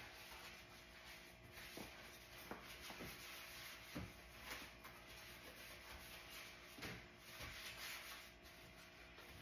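Faint scrubbing and rubbing of a sponge over the kitchen sink and countertop, with a few light knocks and clicks.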